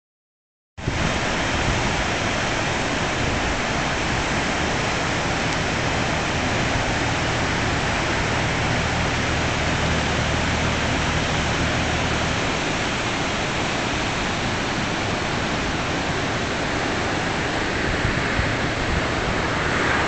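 A river in spate rushing through rocky rapids: the steady, dense rush of muddy white water, starting just under a second in.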